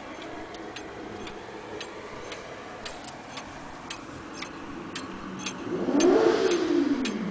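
Vintage Dutch weight-driven pendulum wall clock ticking steadily. From about five and a half seconds in, a louder motor sound rises and then falls in pitch over it and is the loudest thing near the end.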